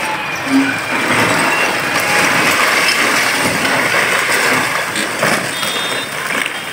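Part of a reinforced-concrete building collapsing under a demolition excavator: a steady rush of crashing, tumbling rubble with a sharper crash about five seconds in, over a diesel excavator engine running.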